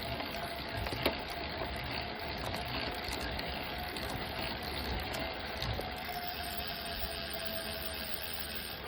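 Kicker car audio speaker giving off a steady hiss with a faint whine and a sharp pop about a second in, then fainter clicks: the unwanted popping fault of the system.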